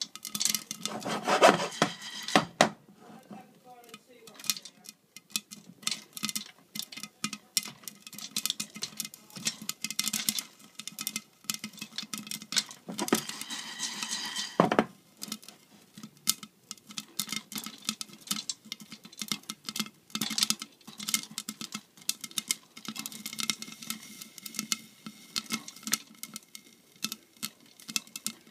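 Popcorn kernels popping in a lidded stainless steel pot, a dense, irregular run of sharp pops against the lid and pot. There are louder scraping, rattling stretches near the start and about halfway through as the pot is shaken on the electric coil burner.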